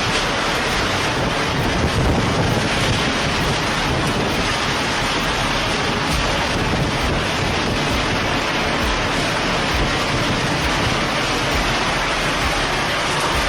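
Storm noise: a loud, steady rush of wind and heavy rain, swelling briefly about two seconds in.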